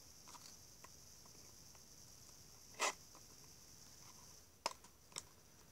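Quiet handling noises as scissors and a doll's box are handled: a short rustle about three seconds in and two sharp clicks near the end, over a faint steady hiss.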